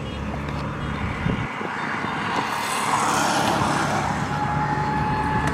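A motor vehicle's engine rumbling steadily, with a rush of noise that swells and fades about halfway through, as of a vehicle passing, and a steady tone coming in near the end.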